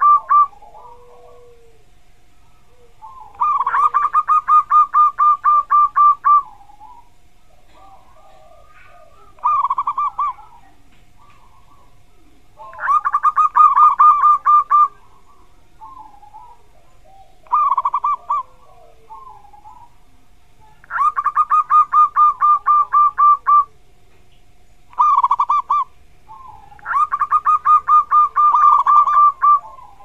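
Zebra dove (perkutut) cooing: bouts of two to three seconds of rapid staccato notes, repeated every few seconds, with shorter phrases of a few notes between them.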